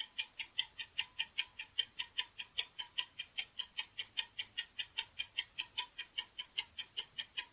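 Clock-ticking sound effect of a quiz countdown timer: steady, evenly spaced ticks, about five a second.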